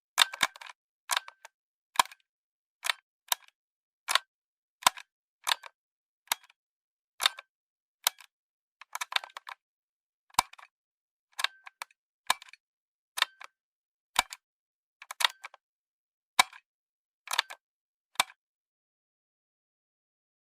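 Cassette deck's mechanical piano-key buttons pressed over and over: sharp plastic-and-metal clicks, about one a second, some doubled, stopping near the end.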